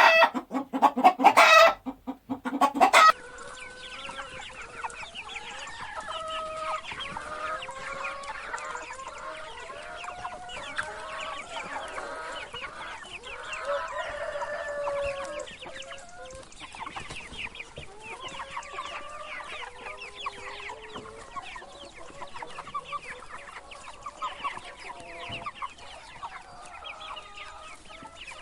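Chickens clucking, many short overlapping calls. They are loudest in the first three seconds, then carry on softer and steady.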